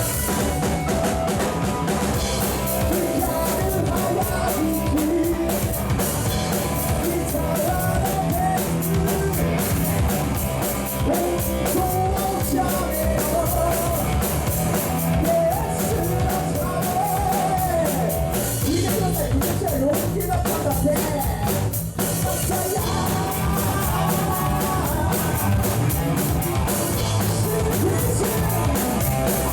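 Rock band playing an original song with drum kit, guitar and singing, at a steady beat.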